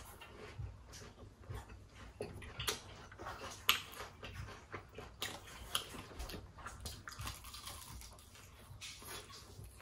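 A person chewing and biting Kyochon glazed fried chicken close to the microphone, with many irregular sharp crunching clicks and wet mouth sounds.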